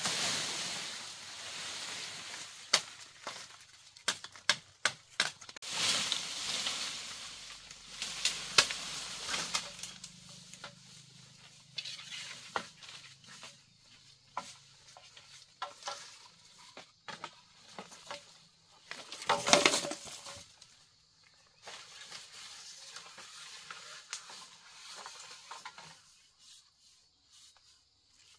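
Bamboo leaves rustling and dry leaf litter and twigs crackling and snapping as someone pushes through a bamboo thicket and handles bamboo stems. The sound comes in irregular clusters of sharp snaps, busiest in the first third, with one louder rustle about two-thirds of the way in, then dies down near the end.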